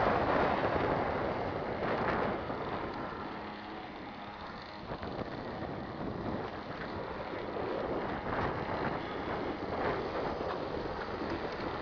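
Gusty wind buffeting the microphone, an uneven rushing noise that eases a few seconds in and then rises again.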